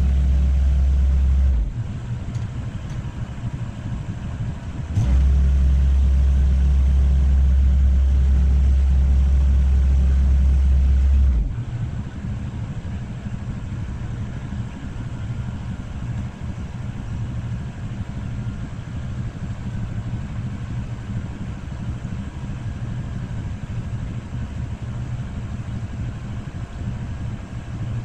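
Engine of a telescopic boom lift running steadily with a low hum. A much louder deep rumble comes in over it twice: for the first second and a half, and from about five to eleven seconds in, starting and stopping abruptly.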